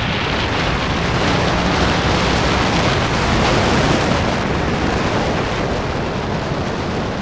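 Wind rushing over the microphone of a moving motorcycle, with the engine running underneath, a steady rush of noise that swells a little about four seconds in.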